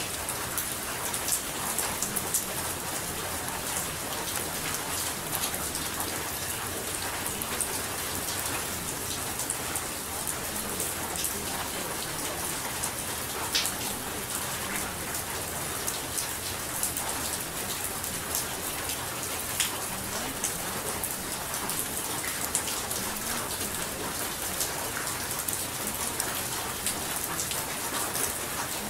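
Steady rain falling, with many small drop ticks hitting a surface through an even hiss.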